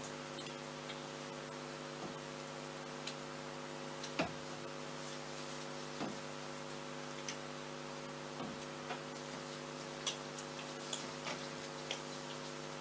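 Steady electrical hum, with scattered faint clicks and taps from people pumping hand sanitiser and rubbing their hands together.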